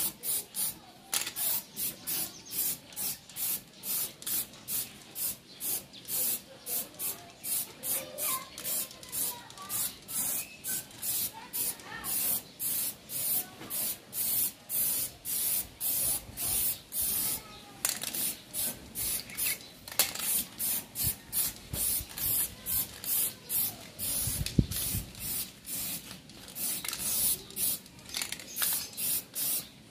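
Aerosol can of high-temperature flat black spray paint hissing in short, rapid bursts, about two a second, as a pipe is painted.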